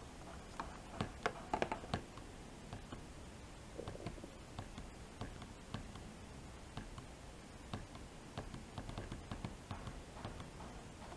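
Small plastic push-buttons of a digital 12 V weekly programmable timer clicking under a thumb, pressed repeatedly at irregular intervals with a quick cluster of clicks a second or two in, as the day-of-week programme selection is stepped through.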